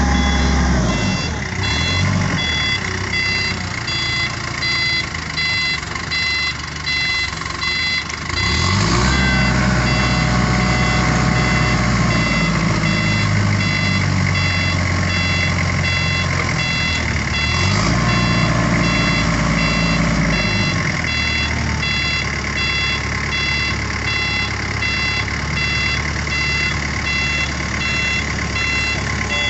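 Heli forklift engine running under hydraulic load while the mast lifts a bale clamp, speeding up about a third of the way in and settling back near the two-thirds mark. A high warning beeper sounds about twice a second throughout.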